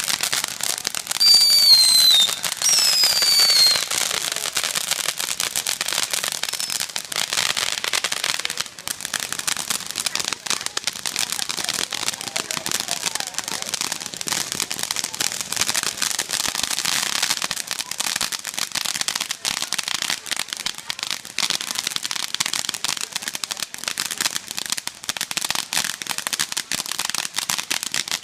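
Consumer fireworks going off: a dense, continuous crackle of rapid pops like strings of firecrackers. Two descending whistles sound about a second in and again near three seconds in, the loudest part.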